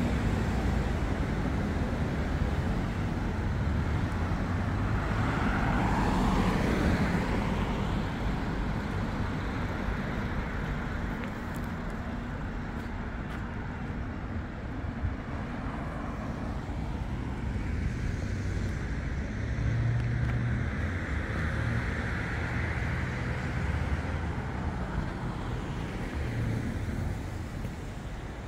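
Road traffic: a steady wash of city street noise, with cars passing and swelling louder about six seconds in and again around twenty seconds in.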